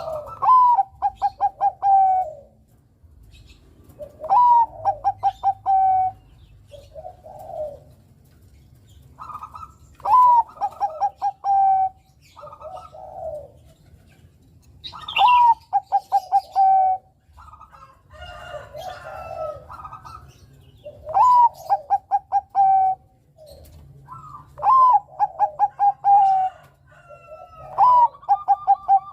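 Zebra dove (perkutut, Bangkok-bred song line) singing its cooing song over and over. Each phrase opens with a rising note, breaks into a quick run of short clipped notes and ends on a longer held note, repeating every three to six seconds. Softer, lower coos come between the phrases.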